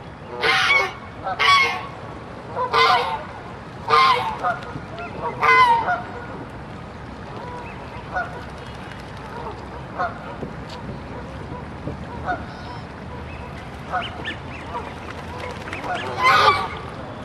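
Geese honking: five loud honks in the first six seconds, then scattered fainter calls, and one more loud honk near the end.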